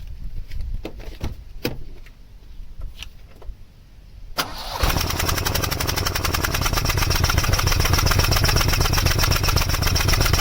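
A few small clicks, then about halfway through the Vauxhall Cavalier's 1.8-litre four-cylinder engine starts at once and runs at a steady idle. The engine has a misfire on cylinder 3, which the owner thinks may be a blocked injector.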